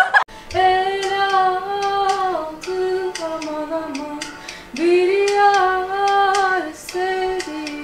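A young woman singing a song solo in long held notes that slide from pitch to pitch, starting about half a second in, with a new, louder phrase beginning near the middle.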